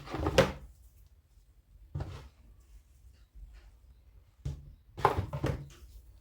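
Handling sounds of chapati dough being shaped into balls and set down on a work surface: short bursts of soft knocks and rustling a couple of seconds apart, the busiest near the start and near the end.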